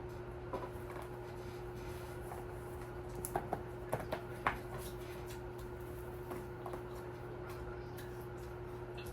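Hands working on a craft model volcano: a handful of small taps and clicks, bunched about three to four and a half seconds in, over a steady electrical hum.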